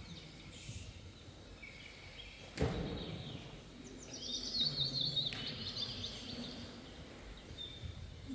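Birds chirping and twittering over a low background hiss. A single sharp knock comes about two and a half seconds in.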